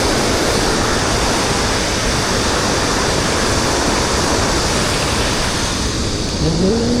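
Steady, loud rushing noise with no rhythm or distinct events. A brief rising vocal sound comes near the end.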